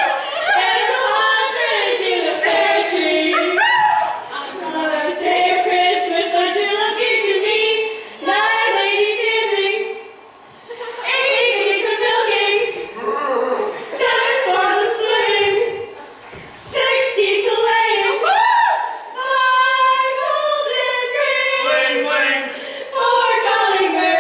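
Several voices singing together with no clear instrumental backing, in sung phrases broken by short pauses.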